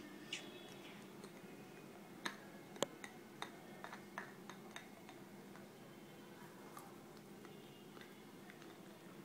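A dog gnawing on a chew held in a hand: faint, irregular clicks of its teeth biting down, the sharpest a little under three seconds in, over a faint steady hum.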